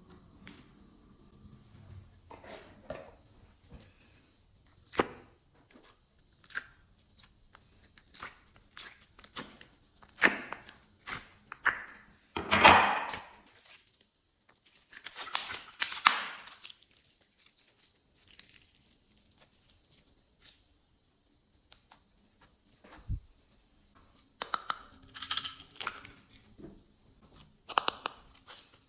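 Glossy slime being mixed and squished by hand: irregular sticky clicks and crackles, coming in clusters, loudest about halfway through.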